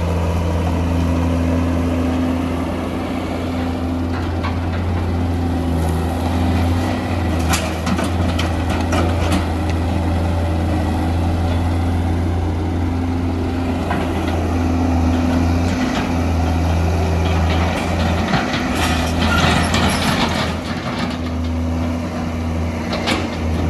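Hitachi EX200 excavator's diesel engine running steadily under working load. Twice there are a few seconds of clattering and scraping as the bucket works through rock and sand, with a short rattle near the end.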